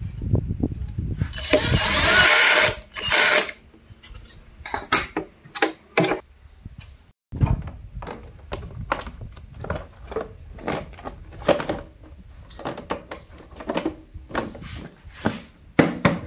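Hand tools and plastic scooter body panels being handled: a run of clicks, knocks and rattles, with a loud hissing rush between about one and three seconds in. A faint steady high whine runs through the second half.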